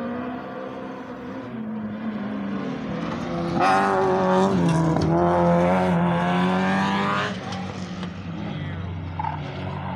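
Rallycross car passing close on a dirt track, its engine revving hard. The engine note swells to its loudest a few seconds in, drops in pitch near the middle, then fades as the car moves away.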